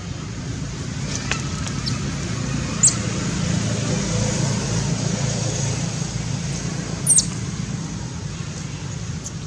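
Steady low rumble of road traffic. Two brief high-pitched squeaks break through it, about four seconds apart.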